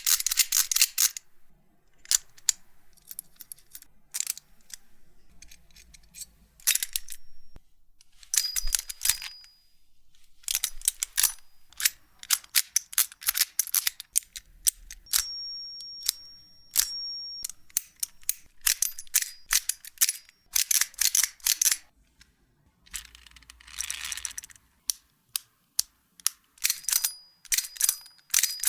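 Hand-held EDC fidget toy being worked in the hand: bursts of rapid, sharp clicks and snaps lasting a second or two each, separated by short pauses.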